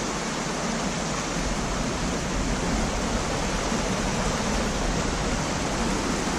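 Steady rush of water over a small woodland waterfall, an even, unbroken noise that grows slightly louder partway through.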